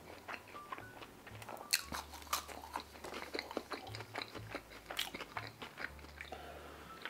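Close-miked chewing of truffle fries, with many small crisp crunches and wet mouth clicks, over soft background music.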